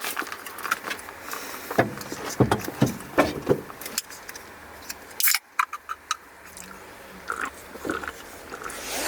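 Irregular knocks, clicks and light metallic clatter of hands and tools working on a car, with an abrupt break about five seconds in.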